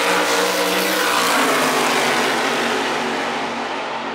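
Two big-block V8 drag cars at full throttle just after the launch, running away down the strip; the engine noise fades over the last second or so as they pull into the distance.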